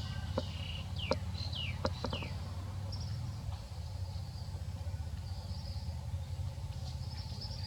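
Outdoor ambience: three short falling chirps, like a small bird's, between about one and two and a half seconds in, a few light clicks, a faint high insect-like buzz that comes and goes, and a steady low hum underneath.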